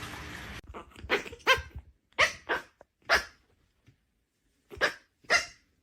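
A dog barking: about seven short, sharp barks in uneven bursts, with a pause of about a second and a half before the last two. A steady hiss in the first half second stops abruptly where the clip changes.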